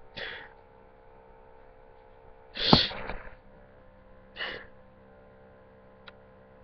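A person crying quietly into a webcam microphone: a short sniff at the start, a sharp, loud burst of breath about halfway through, and a softer sniff a couple of seconds later, with a faint click near the end.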